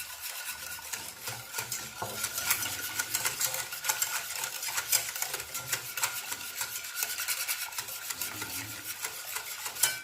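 Milk, sugar and custard powder being stirred briskly in a saucepan, the utensil clicking and scraping rapidly and steadily against the pan to break up lumps of the powder.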